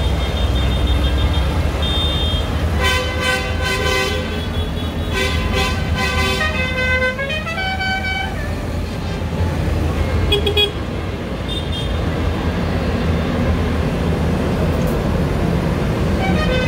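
Several farm tractors' diesel engines running as they drive slowly past in a procession. Vehicle horns toot on and off over the engines through the first half, and again briefly later on.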